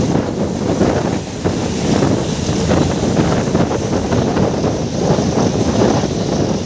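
Meter-gauge passenger train running along the track, heard from aboard: a loud, steady noise of wheels on rails, with wind on the microphone.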